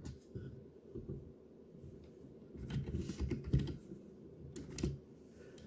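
Typing on a computer keyboard: irregular keystrokes in short runs, with a few quick bunches of keys.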